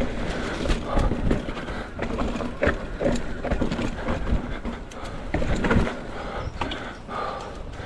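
Hardtail mountain bike rattling and knocking over roots on a steep descent, with a rear brake squealing in short spells; the squeal comes from a contaminated brake.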